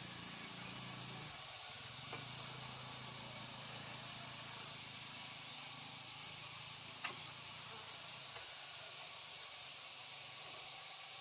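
Steady high-pitched hiss of background ambience, with a faint low hum in the first few seconds and a single sharp click about seven seconds in.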